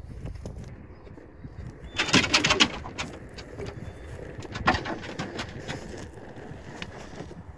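Excited Deutsch Drahthaar hunting dog whining in short bursts as it is let out of its crate, with scattered clicks and knocks of gear in the truck bed.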